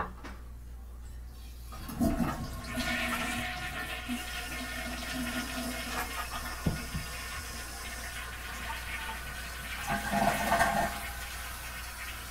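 Toilet flushing after a cat paws down the tank's flush lever. The water starts rushing suddenly about two seconds in and keeps running, with a sharp knock partway through and a louder surge near the end.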